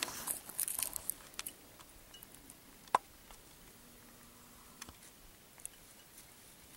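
Handling noise from a handheld camcorder: a quick flurry of crackling clicks at the start, then one sharp click about three seconds in. A brief faint hum a second later fits the zoom motor, as the view zooms in.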